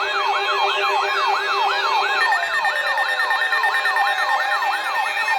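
Several electronic sirens sounding together: one yelps in a fast up-and-down sweep about three times a second while others slide slowly down in pitch, and a steady high tone joins about two seconds in.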